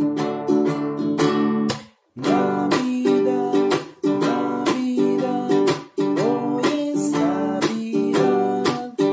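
A man singing a song while strumming a many-stringed, pear-shaped plucked string instrument in quick, even strokes. The strumming breaks off for a moment about two seconds in; the voice comes in when it resumes.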